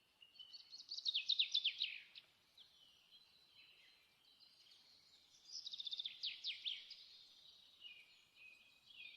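A songbird singing: two loud phrases of quick, high, downward-sweeping notes, one about a second in and one about five and a half seconds in, with softer warbling between them.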